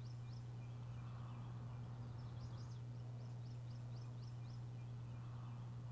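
Faint birdsong: short, high, downward-sliding chirps in quick runs of several notes, over a steady low hum.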